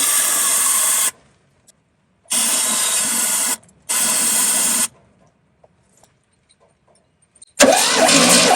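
Fiat 126 engine turned over on its starter motor in three short bursts of about a second each, without firing, while fuel delivery to the carburettor is checked; no fuel is getting through. Music starts near the end.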